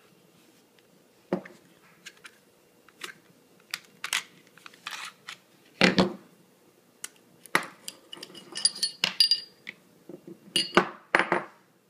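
Glock 26 pistol being field-stripped by hand: a run of sharp clicks and clacks of the polymer frame and steel slide, loudest about six seconds in, then small metallic clinks as the recoil spring and barrel are taken out of the slide near the end.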